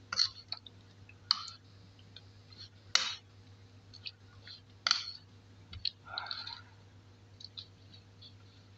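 A metal spoon clicking and scraping against the sides of a bowl while stirring thick, wet marinated chicken: a string of separate sharp clicks, the loudest about 3 and 5 seconds in, with a softer wet squelch around 6 seconds.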